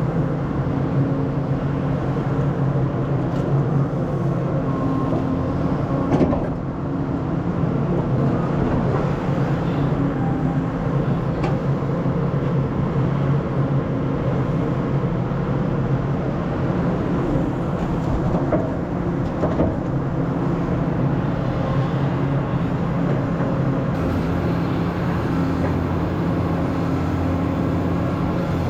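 Caterpillar 320E excavator's diesel engine running steadily under work, heard from the operator's cab, with a few short knocks along the way, the clearest about six seconds in.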